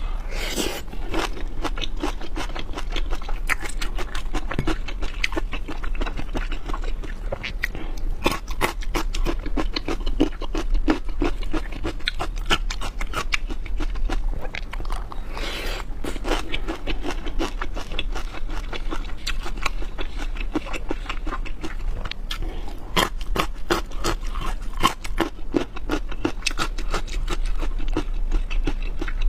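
Close-miked eating sounds of someone chewing and biting into shrimp, with dense, irregular small clicks, crunches and scrapes throughout. There are a few louder swells near the start and again about halfway through.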